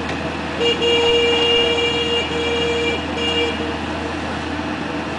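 Amphibious excavator's diesel engine running steadily. Over it, a loud steady tone starts about half a second in and holds for over a second and a half, then sounds twice more, briefly.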